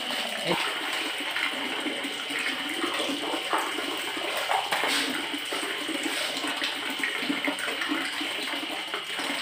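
Water running and splashing at a communal washing trough.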